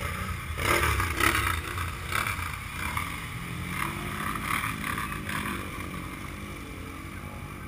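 Off-road vehicle engines running in a muddy pond, with water churning and splashing as a side-by-side drives through it. The splashing is loudest in the first couple of seconds, then the steadier engine drone carries on, its pitch wavering.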